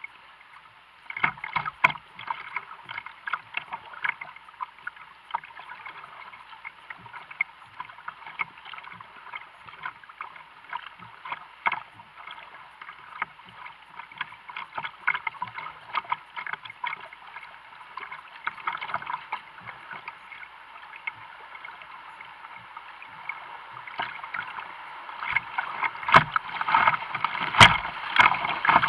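Kayak moving down a fast creek in high water: splashing from paddle strokes and water slapping the hull over a steady rush of current. The rush and splashing grow louder near the end as the boat enters rapids, with a couple of sharp splashes against the bow.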